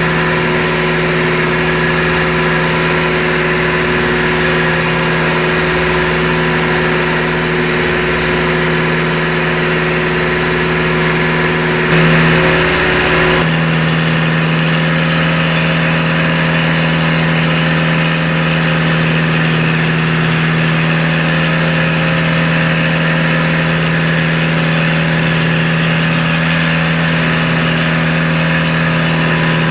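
Fishing boat's inboard engine running steadily under way, a constant drone with wind and sea hiss over it, heard on deck. A brief louder moment comes about twelve seconds in, after which the deepest rumble drops away.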